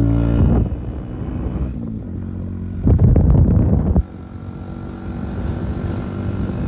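Motorcycle engine running steadily while riding, with two loud bursts of noise on the microphone: one at the start, and one lasting about a second from three seconds in that cuts off suddenly.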